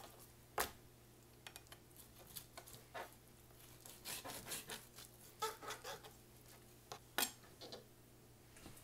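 Chef's knife cutting raw pork chops on a plastic cutting board: faint, scattered taps and clicks as the blade meets the board, with a sharper knock about seven seconds in.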